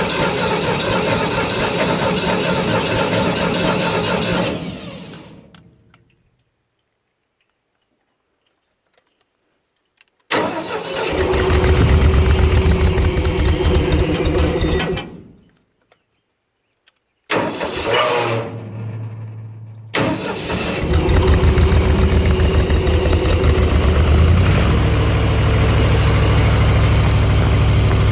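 Air compressor's engine, running on a newly fitted fuel pump: it runs steadily, winds down and stops about five seconds in, then starts twice more. Near the end it catches and settles into steady running.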